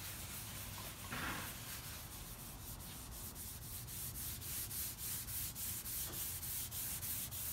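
Pad of 0000 steel wool rubbing wax into the old finish of a pine desktop, a rasping scrub in rhythmic strokes of about three a second.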